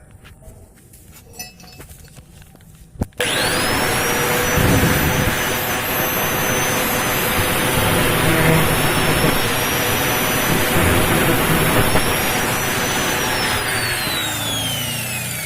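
Angle grinder switched on about three seconds in, its whine rising as it spins up, then running loud and steady while cutting a wire inside a refrigerator compressor. Near the end it is switched off, and its whine falls away as the disc spins down.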